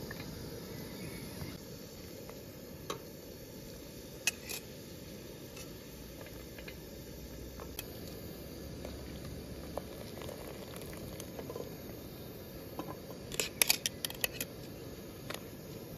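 Metal tongs clicking against an aluminium pot and a glass jar as wet blanched grape leaves are lifted out of the water and packed into the jar, with a few scattered clicks and a quick run of clinks near the end. A steady low background hiss runs underneath.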